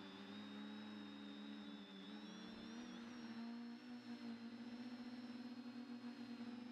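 A drone's electric motors and propellers whining steadily as it flies, several held tones that drift slightly in pitch, with a fast fluttering beat setting in about halfway through.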